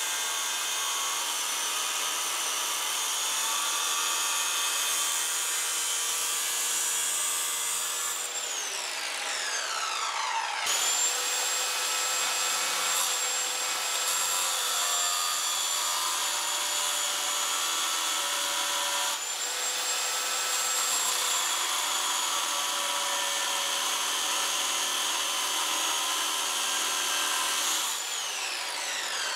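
Ryobi circular saw with an abrasive cutoff wheel grinding through a steel channel, running with a steady high whine. About a third of the way in its pitch falls as the motor winds down, then it comes back at full speed, and it winds down again near the end.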